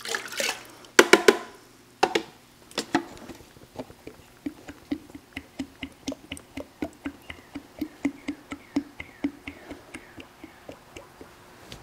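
A few loud knocks and splashes as a plastic cup is emptied into a bucket of water and a plastic pail is handled. Then coolant concentrate glugs steadily out of the spout of a tipped five-gallon pail into a cup, about four glugs a second.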